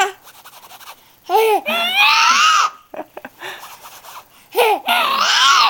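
A baby laughing and squealing in two high-pitched bouts, one starting about a second in and another near the end, with a few short scratching clicks in between that set the laughter off.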